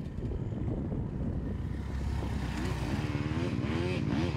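250cc four-stroke off-road dirt bike engine: a rough, low running sound at first, then from about halfway in it is revved up and down again and again.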